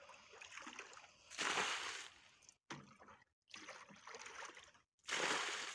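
A plastic bucket being dipped into a shallow muddy pool and the water sloshed out as the pool is bailed down. There are two loud splashing pours, about a second and a half in and again near the end, with quieter sloshing between.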